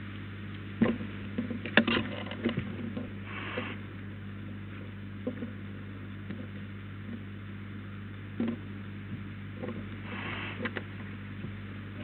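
Steady low electrical hum in the nest camera's audio, with scattered faint clicks and knocks, a cluster of them in the first few seconds, and two short hissing bursts, one a few seconds in and one near the end.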